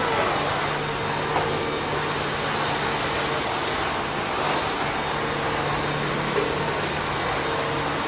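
Cordless stick vacuum cleaner running steadily, its motor giving a steady rushing noise with a thin high whine, as it is pushed over a tile floor.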